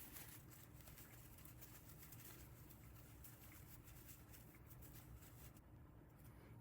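Near silence: faint room hum with a few soft ticks.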